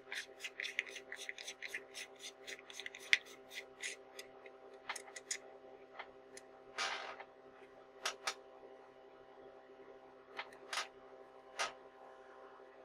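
Faint handling sounds from fingers turning the knurled barrel of a Nikon Series E 100mm f/2.8 lens while screwing it back together: a quick run of small clicks and scrapes for about four seconds, then a few scattered clicks and a short rustle. A steady hum sits under it.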